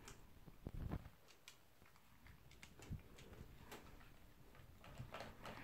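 Poodle drinking from a nozzle water bottle clipped to its wire crate, its tongue knocking the metal spout in faint, irregular clicks that come faster near the end. A low thump about a second in.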